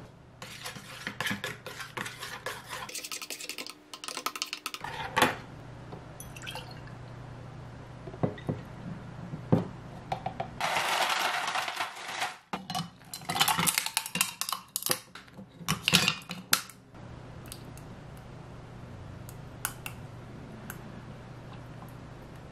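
A metal spoon clinks rapidly against a small stainless-steel pitcher while stirring espresso and syrup. About eleven seconds in, a metal scoop digs with a rattling scrape into a bin of ice cubes. The ice cubes then clatter into a glass over the next few seconds.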